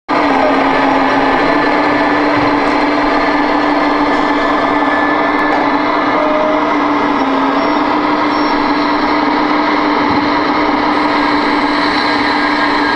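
Electronic diesel engine sound from the Damitz sound module in an RC Hitachi Zaxis model excavator, running steadily with a constant hum that shifts slightly in pitch a couple of times as the machine works.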